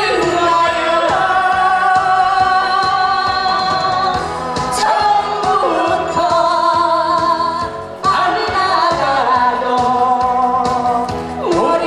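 A woman singing a Korean song into a microphone, holding long notes with vibrato, over amplified backing music with acoustic guitar.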